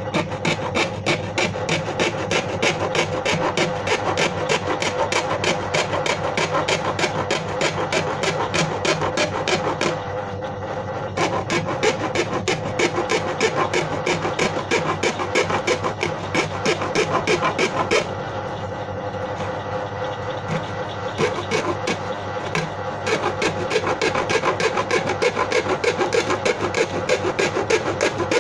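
Hand tool rasping back and forth on the plastic of a used paint bucket, in quick even strokes of about four a second, with a couple of short pauses.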